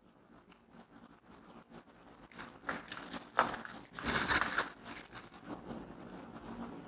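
Metal tools scraping and clicking against the socket openings of a switched-on power strip, poked in to test its shock-protection shutters. There is a sharp click about three and a half seconds in, then a longer, louder scrape just after four seconds.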